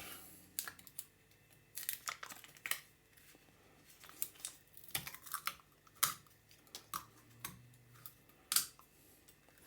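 Light kitchen handling noises: a scattering of irregular soft clicks, taps and rustles, with a few sharper knocks about two, five, six and eight and a half seconds in.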